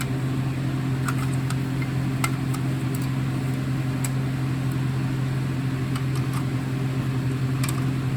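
Steady low hum, with a few light clicks and taps scattered through it.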